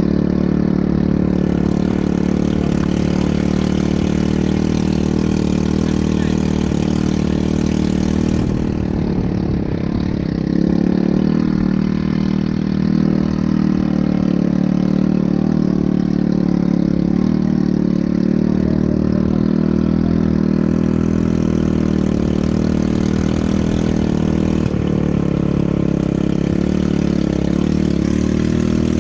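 ATV engine running steadily, with a brief drop in level about nine seconds in.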